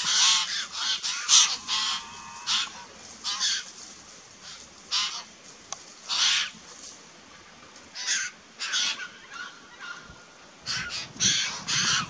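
Harsh, rasping bird calls repeated in short bursts, from an Australian magpie and white-winged choughs squabbling. The calls come in a quick cluster at first, spread out through the middle and bunch up again near the end.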